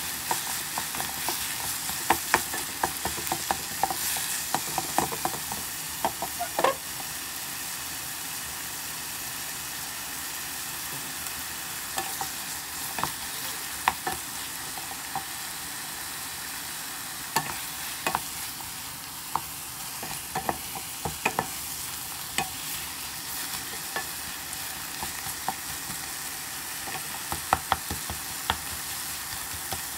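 Ground meat, onion and tomatoes sizzling in a pot as a wooden spatula stirs and scrapes through them. Sharp knocks of the spatula against the pot come in bunches over a steady frying hiss.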